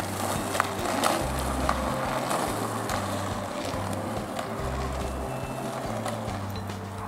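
Roller skate wheels rolling on asphalt, an even rolling rumble with a few scattered clicks, over background music with a steady bass line.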